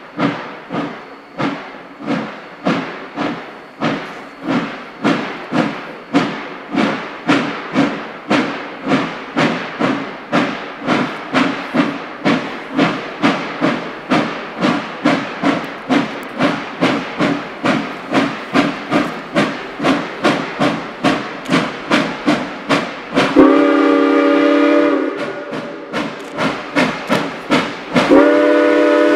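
Steam locomotive working hard, its exhaust beating out sharp chuffs at about two a second. Near the end it blows its chime whistle twice, a short blast and then a longer one.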